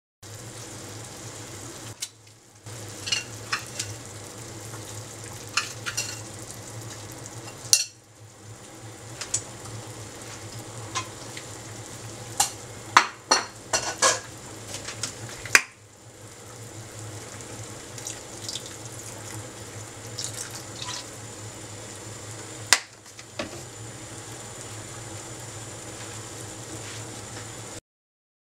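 Saucepan of konnyaku simmering in seasoned liquid on a gas burner: a steady bubbling hiss with scattered sharp pops and ticks, breaking off briefly a few times.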